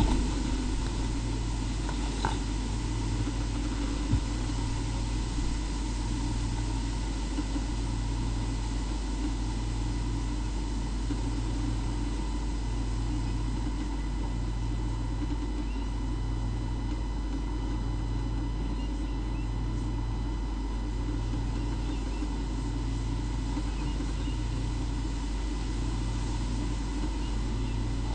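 Steady low mechanical hum with a throb that pulses about once every second and a half, and a few faint clicks in the first few seconds.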